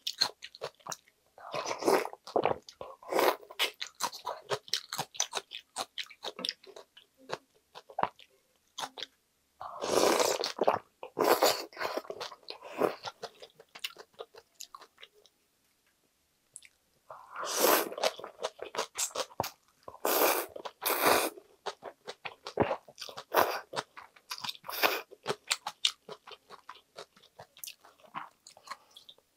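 Close-miked chewing and crunching of cold mulhoe (raw seafood, vegetables and somen noodles in icy broth), mouthful after mouthful, with a few longer, louder stretches and a pause of a few seconds midway.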